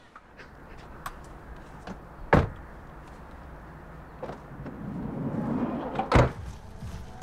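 Van doors being shut: a sharp knock about two seconds in, small clicks, then the sliding side door rolling shut and slamming about six seconds in, the loudest sound.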